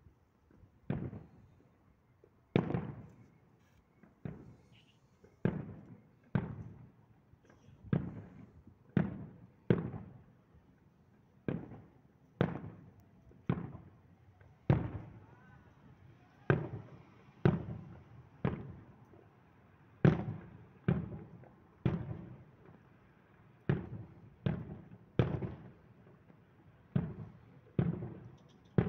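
Aerial firework shells bursting in a steady barrage, about one bang a second at uneven spacing, each bang fading away over a fraction of a second.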